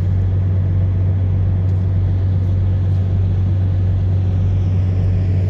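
Steady low drone of an idling diesel truck engine, level throughout with no change.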